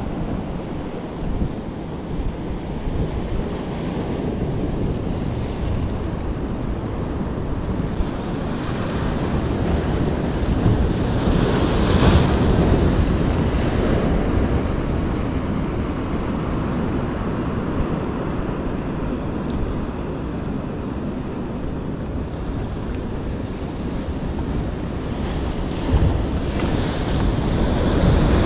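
Sea waves washing and breaking against shoreline rocks, with wind buffeting the microphone. The surf swells louder about twelve seconds in and again near the end as bigger waves break.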